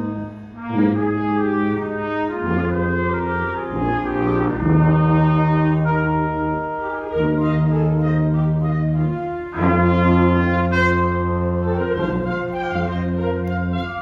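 School concert band playing, with the brass to the fore: held chords that change every second or two, over a low bass line.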